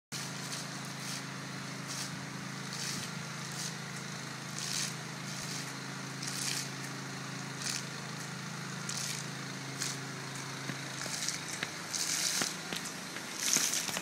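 Water fountain jets spurting and splashing in short hissy bursts about once a second, coming louder and closer together near the end, over a steady low hum that stops about eleven seconds in.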